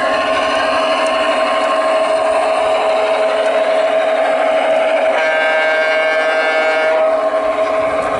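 ESU sound decoder in a garden-scale Union Pacific GP9 model locomotive playing its diesel engine sound through the loco's speaker as the model runs, a steady hum with several held tones. About five seconds in, the decoder sounds the horn for about two seconds.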